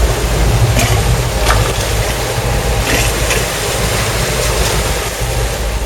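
Steady low rumble of wind and sea noise on an open fishing boat, with a few light knocks on deck.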